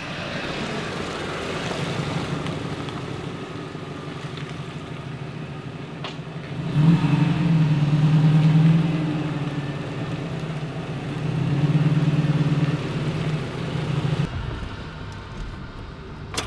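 Tyres hissing on a wet road, then a 1996 Toyota Tacoma pickup's engine running up close, its note swelling and easing twice.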